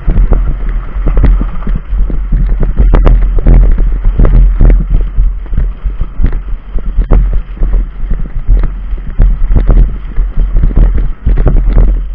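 Wind buffeting a microphone mounted on a billy cart, with the constant rumble of its wheels and many irregular knocks and rattles as the cart jolts over a rough dirt and grass track.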